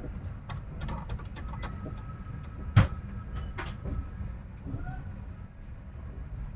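Freight train at a station: a steady low rumble with a run of sharp metallic clicks and knocks, one loud bang about three seconds in and a softer one a second later, and a few bird chirps.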